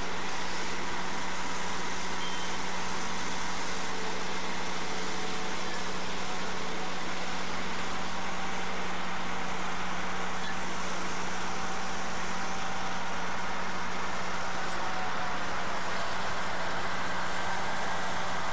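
Boat engine running steadily: an unbroken drone with a constant low hum under a wash of even noise, with no change in speed.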